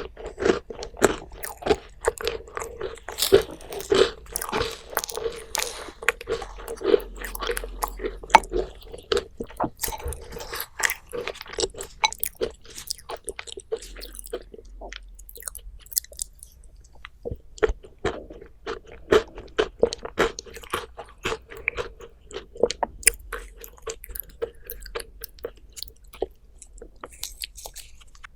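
Close-miked chewing and biting of crisp food: a fast crackle of small crunches, dense for the first dozen seconds, then sparser, softer chews.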